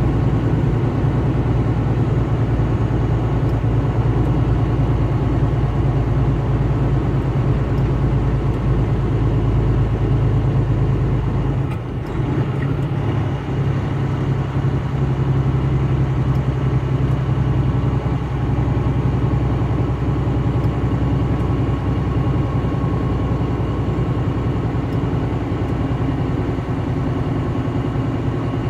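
Steady drone of a vehicle travelling on the highway: engine hum and road noise. About twelve seconds in, the deepest rumble drops away with a brief dip in level, then the drone carries on.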